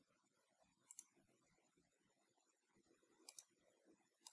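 A few faint computer mouse clicks, each a quick double click-clack, about a second in, a little after three seconds and near the end, over near silence.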